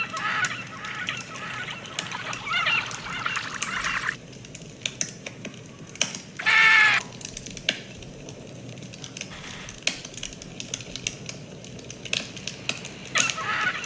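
Birds calling: warbling calls at first, one loud honking call about six and a half seconds in, then quieter stretches with scattered clicks and more warbling near the end.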